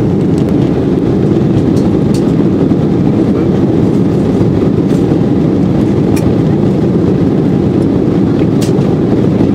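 Steady, loud cabin noise of an Embraer 190 in flight shortly after takeoff: the low rumble of its GE CF34 turbofan engines and the airflow, heard from a window seat over the wing.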